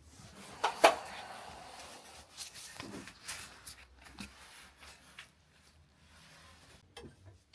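Handling noise: two sharp knocks just under a second in, then scattered lighter knocks and rustling.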